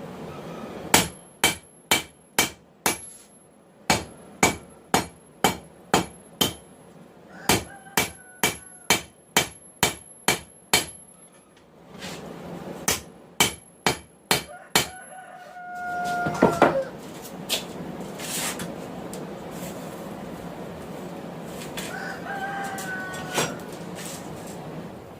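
Hand hammer striking hot 1080 steel on an anvil, about two blows a second in several runs with a bright ring on each blow, as the knife's tang is drawn out. The hammering stops about halfway through and a steady rushing noise takes over.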